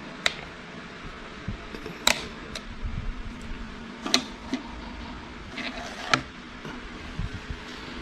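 Hand tools and loose parts clinking and knocking during an LS V8 engine teardown: a string of sharp clicks, the loudest about every two seconds, over a steady low hum.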